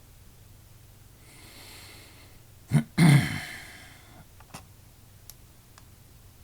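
A person's breath in, then two sharp bursts of breath a moment apart, the second louder and trailing off. A few faint clicks follow.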